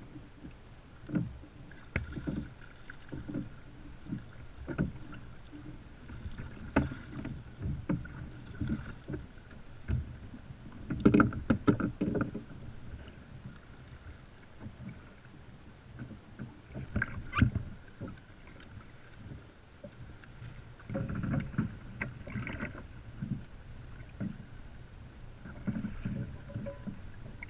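Choppy water slapping against a fishing kayak's hull, with irregular knocks and thumps; the busiest clusters come about eleven seconds in and again past the twenty-second mark.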